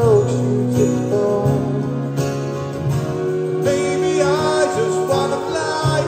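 Live rock band playing, with guitar and a steady bass line under a lead melody that bends and slides in pitch.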